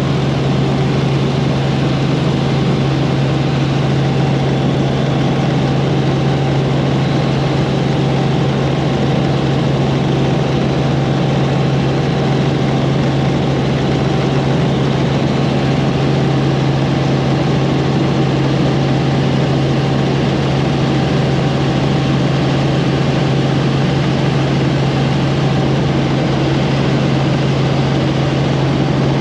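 Sightseeing helicopter in steady cruise, heard from aboard: a loud, unchanging low drone from the engine and rotors with a constant rushing noise over it.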